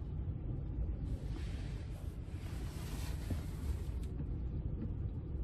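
Steady low rumble of road and engine noise heard inside a moving car's cabin, with a rushing hiss that swells for about three seconds in the middle.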